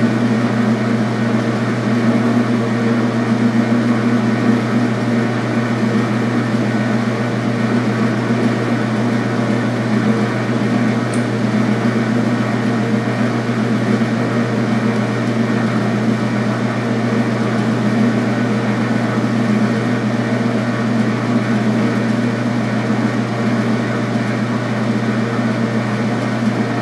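Metal lathe running with a steady hum from its motor and gearing, turning a steel rod while the cutter advances on the lathe's slowest power feed.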